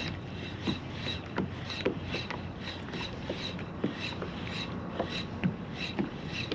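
Fishing reel being cranked to retrieve a topwater popper, with a rasping mechanical whir and high clicks about twice a second. Irregular dull knocks come in among them as the rod is worked.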